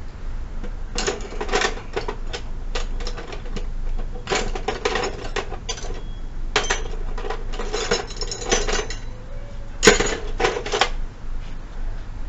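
Ratchet wrench clicking in four quick bursts of rapid metal clicks, working the tight pivot bolt of a Royal Enfield Himalayan's rear brake pedal.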